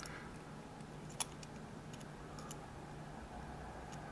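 Lock pick working the pins inside a Schlage Everest cylinder: faint metallic ticks and scrapes, with one sharper click about a second in.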